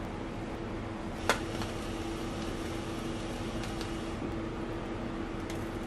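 Steady machine hum with a low steady tone underneath, and one sharp click about a second in; a few faint light ticks follow later.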